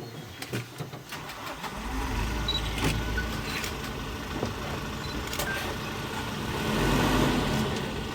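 A safari vehicle's engine running, coming in about two seconds in and swelling to its loudest near the end.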